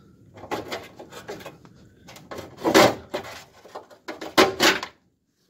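An old steel parking brake cable being pulled out through its routing under a car, scraping and rubbing in uneven strokes. Two louder pulls come about two and a half and four and a half seconds in.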